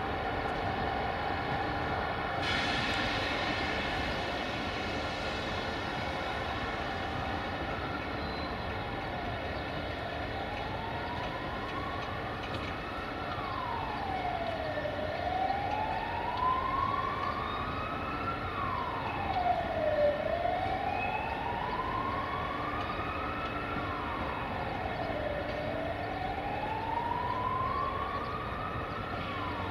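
An emergency-vehicle siren wailing: its pitch rises slowly and then drops quickly, over and over, about every five seconds. Underneath is a steady rail-yard hum, and a hiss sets in about two seconds in and fades away.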